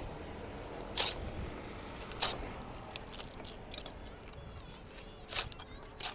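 A few short scrapes and crackles of dry palm frond bases and fibre being gripped and pulled, and a tapping knife scraping against them, the loudest about a second in and near the end.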